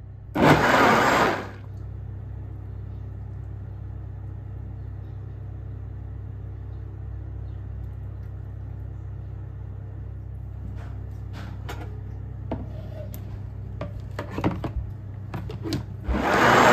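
NutriBullet blender running in short bursts: one about a second in and another near the end. Between them a steady low hum, with light clicks and knocks of plastic containers in the second half.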